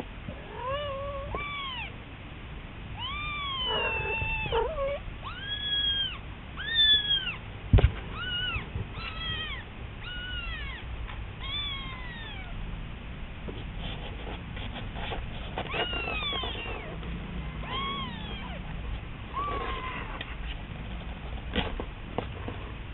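Kitten meowing over and over in thin, high-pitched cries, each call rising and falling, with short gaps between them. A single sharp knock about eight seconds in.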